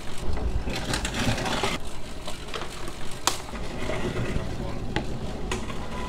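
Supermarket reverse vending machine taking back empty plastic bottles: a rush of mechanical noise lasting about a second as a bottle is drawn in, then a few sharp clicks.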